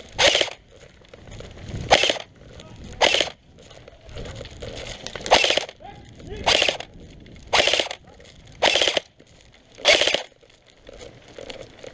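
Airsoft gun firing about eight short bursts, one every one to two seconds.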